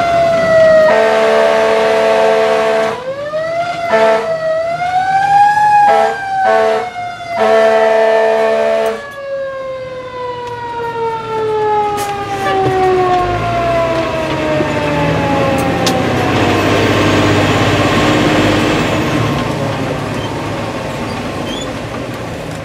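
Fire engine siren wailing up and down, with several long air-horn blasts over it in the first nine seconds, heard from inside the cab. The siren then winds down slowly over about ten seconds while the truck's diesel engine rumble comes up.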